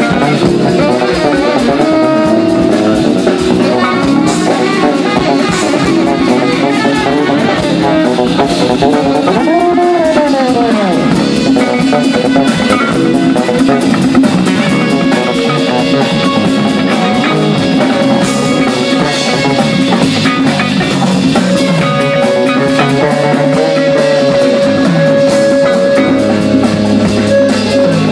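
Live rock band playing loud through a stage PA: electric guitar over a drum kit. About ten seconds in, one note bends up and back down.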